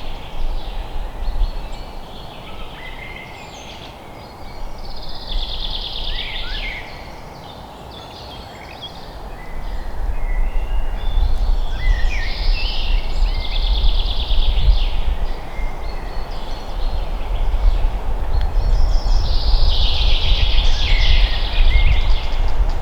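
Forest songbird singing trilled phrases every several seconds over steady low wind rumble and a background hiss of rustling noise, the rumble growing louder about halfway through.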